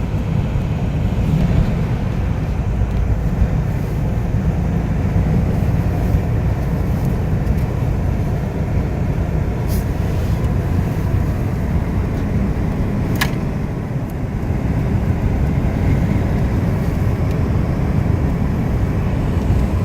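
Steady low rumble of road and wind noise inside a moving car's cabin, with two brief clicks about ten and thirteen seconds in.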